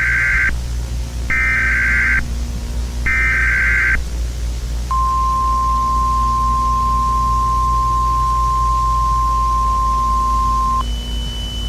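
Emergency Alert System broadcast signal: three short bursts of screeching SAME header data, each about a second long, then a steady single-pitch attention tone held for about six seconds. Near the end it switches to a higher steady tone, with a low hum underneath throughout.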